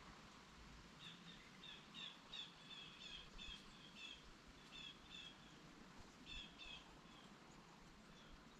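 Faint songbird chirping: a run of short, quick high notes, many of them in pairs, starting about a second in and fading out near the end, over a quiet outdoor background.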